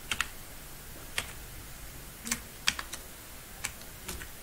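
Slow, uneven keystrokes on a computer keyboard as a short code is typed in, one key at a time.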